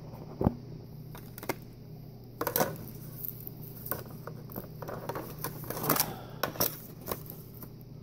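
Irregular clicks and light clattering as two LED light bars and their wiring are handled and knocked together, about a dozen sharp knocks, over a faint steady low hum.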